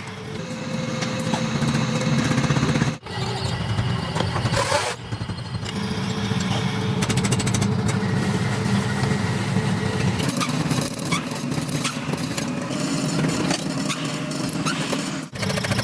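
Workshop machinery running steadily with a rapid mechanical rattle. The sound drops out sharply twice, about three seconds in and near the end.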